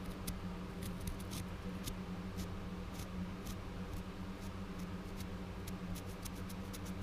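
Sharpie permanent marker tip dabbing and scratching on a fishing rod blank and reel seat, inking over exposed glue: a string of small irregular clicks and scrapes over a steady low hum.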